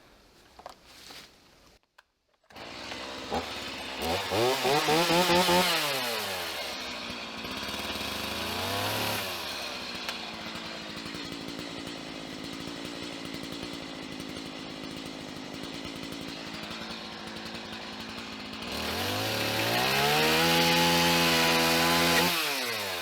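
Chainsaw starting up about two and a half seconds in, revved up and back down, idling, then revved again and held at high speed for about three seconds before dropping back near the end, as used to cut a wooden plank to length.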